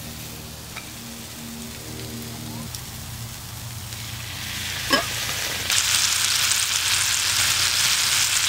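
Water poured into a hot frying pan of buttered broccoli and cauliflower over a campfire, setting off a loud steady sizzle and hiss from about six seconds in. Before that there is a quieter sizzle, with faint background music.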